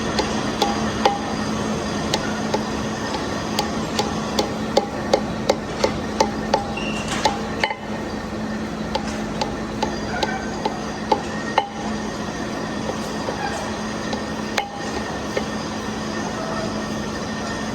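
A machine tool running with a steady hum, overlaid by a quick irregular series of sharp metallic clicks and taps, thickest about a third of the way in and thinning out after the middle.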